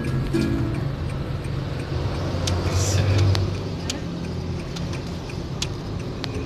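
Car cabin noise while driving: a steady low rumble of engine and tyres, swelling louder around the middle, with a few scattered sharp clicks.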